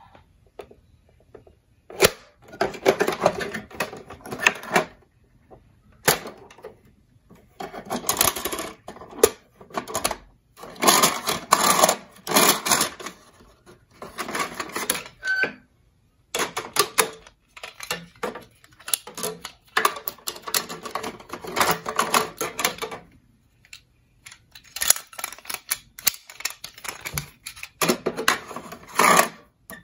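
Hard plastic parts of a toy ambulance clicking, snapping and rattling as its hatch, rear doors and folding stretcher are worked by hand. The noise comes in bursts of quick clicks with short pauses between.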